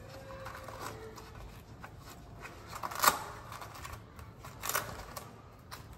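Soft rustling and short rasps as a child's sneaker with hook-and-loop straps is handled and pulled onto a foot, with a louder rasp about three seconds in and another near the five-second mark.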